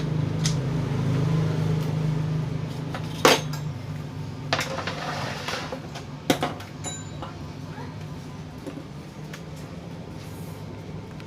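Plastic and metal parts of an electric fan clicking and scraping as it is handled and taken apart to reach its stiff motor shaft, over a steady low hum that is strongest for the first few seconds.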